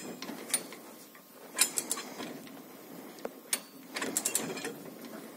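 Ratchet tensioner on a greenhouse post being worked with a long lever bar to pull the plastic film tight, its mechanism clicking and clattering in short runs several times.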